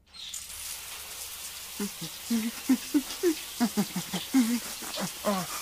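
Cartoon shower sound effect: water spraying steadily from a shower head. From about two seconds in, a string of short, low notes plays over the spray.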